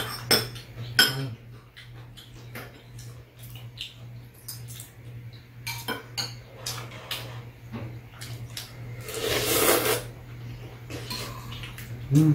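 Spoons and chopsticks clinking and scraping against ceramic soup bowls during a meal, in scattered light clicks over a steady low hum. A longer breathy noise lasts about a second around nine seconds in.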